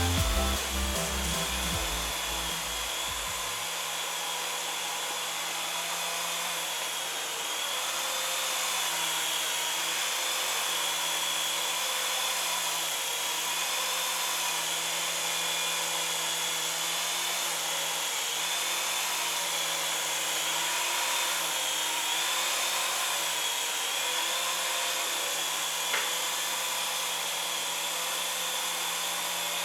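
Syma S107 micro RC helicopter in flight: its small electric motors and coaxial rotors make a steady whine, the pitch wavering gently as the throttle changes. One brief tick sounds late on.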